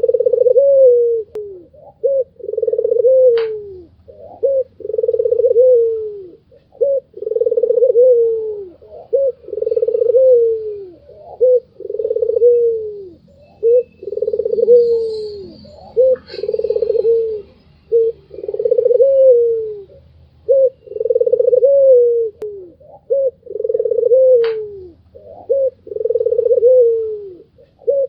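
White domestic ringneck dove (puter putih) cooing over and over. Each call is a long coo that falls away at the end, with short notes between, about one every two seconds.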